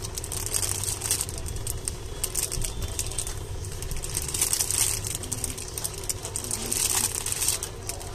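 Clear plastic packaging crinkling as a bagged squishy toy is handled and turned in the hands, with the busiest crackling about halfway through and again near the end, over a steady low background rumble.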